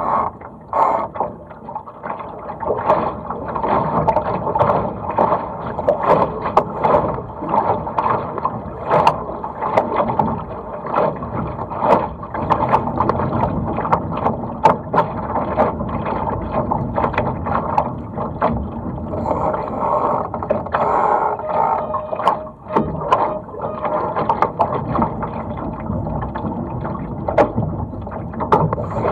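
Water rushing and slapping against the hull of a Laser sailing dinghy under way, with frequent short splashes and knocks over a steady wash of water and wind.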